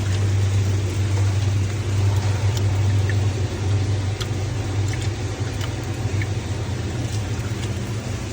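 Steady low mechanical rumble with a few faint high ticks.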